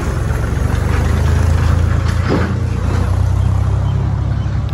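Mahindra Thar 4x4's engine running steadily at low revs as it crawls over a deeply rutted dirt trail.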